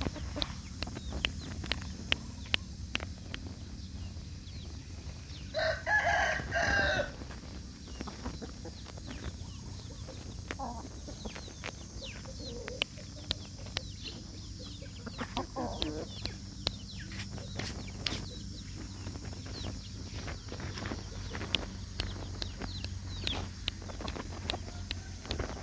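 Chickens clucking, with a rooster crowing once about six seconds in, the loudest sound; a few fainter calls follow. Many short sharp clicks run throughout.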